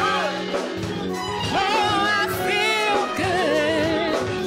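Live band music: a drum kit, electric keyboard, sousaphone and horns playing together, with a wavering lead melody line with vibrato over the top.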